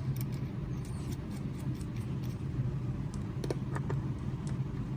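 Light scattered clicks and taps from small tool post parts being handled, over a steady low hum.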